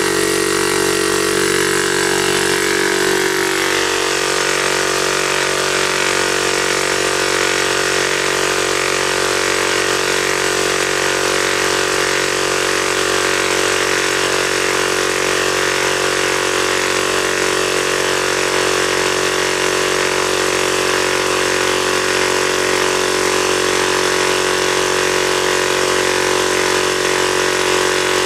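12-volt direct-drive piston air compressor running steadily under load, pumping up its tank with the line past its failed check valve crimped off.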